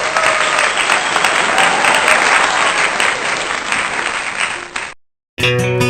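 Crowd applauding, which cuts off abruptly about five seconds in; after a short silence, strummed acoustic guitar music starts near the end.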